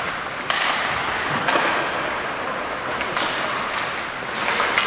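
Ice hockey play in an indoor rink: skates scraping the ice under a steady hiss, with sharp clacks of sticks and puck, the clearest about half a second and a second and a half in and several more near the end.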